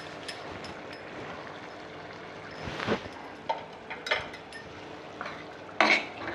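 Curry gravy simmering in a pan: a steady hiss with small bubbling pops, and a few louder clatters about three seconds in, about four seconds in and near the end.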